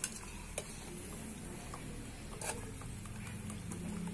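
A few sharp light clicks of metal utensils, a spatula and a skimmer, against a small frying pan over a wood fire, with low background noise. A faint low hum comes in near the end.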